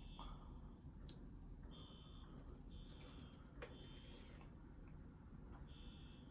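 A high electronic alarm beeping faintly in a neighbouring apartment: short beeps about half a second long, repeating at uneven gaps.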